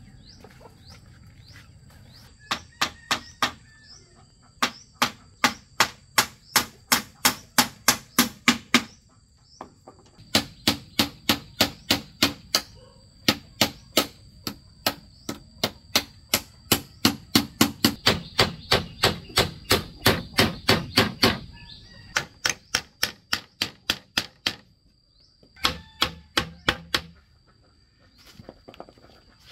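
Hammer blows on bamboo slats and posts, in runs of quick, even strikes about three a second with short pauses between runs. A steady high insect drone runs behind.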